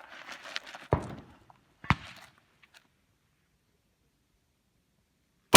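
Two sharp cracks about one and two seconds in, then a loud rifle shot at the very end.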